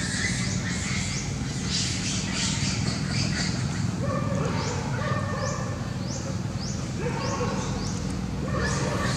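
Forest ambience: a bird calling over and over in short, high, rising chirps, over a steady low hum.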